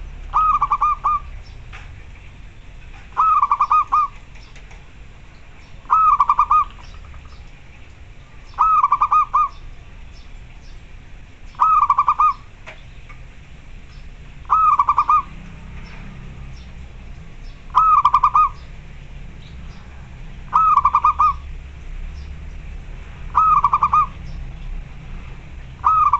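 Zebra dove (perkutut) calling: a short phrase of quick cooing notes, repeated about every three seconds, about ten times.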